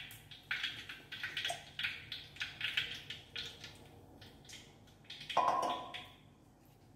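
Oil poured into a hot wok crackling and spitting in quick irregular pops that thin out after about three seconds. About five seconds in there is a short, louder clunk with a brief ring.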